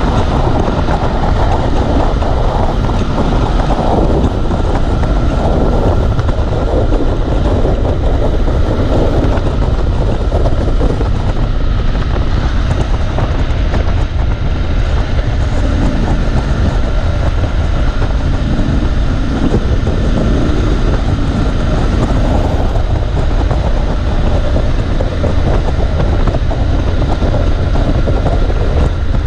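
Triumph Scrambler 1200 XE's parallel-twin engine running steadily on the move, mixed with heavy wind rushing over the microphone.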